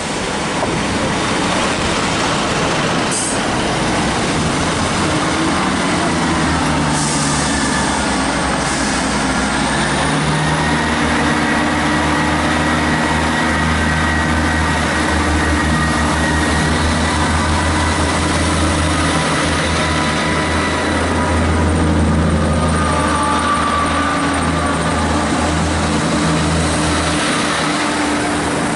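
Diesel engines of a Class 158 diesel multiple unit running at close range as the train moves past along the platform. The sound is a loud, steady low hum with a thin high whine over it.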